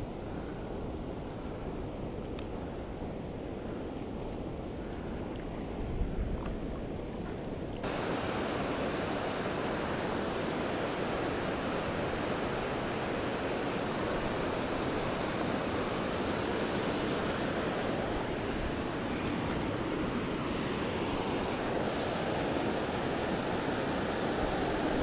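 Steady rush of river water running over rapids. About six seconds in there is a brief low thump, and about eight seconds in the rush turns suddenly louder and fuller.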